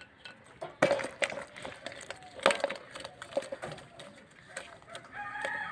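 Sharp cracks and scrapes as climbing perch are scaled and cut against a curved boti blade, with fish handled in a steel bowl. A rooster begins crowing near the end.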